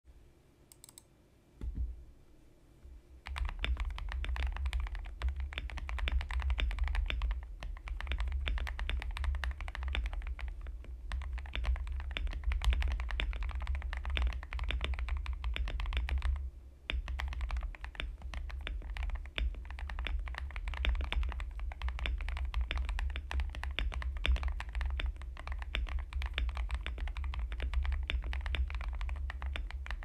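Fast continuous typing on an MW65 custom mechanical keyboard with JWK Quartz v2 linear switches lubed with Krytox 205g0, Poron foam in the case and plate, and Soya Milk keycaps. A single knock comes before it, the typing starts about three seconds in, and it stops briefly about halfway through.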